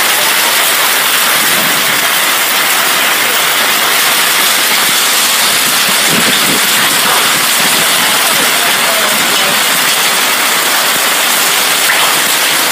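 Heavy storm rain pouring down, a loud, steady, unbroken hiss.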